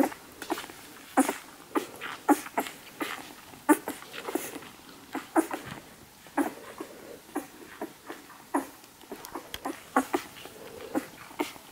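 Newborn rough collie puppies suckling at their mother's teats: an irregular run of wet sucking and swallowing clicks, about two a second, as the milk is drawn.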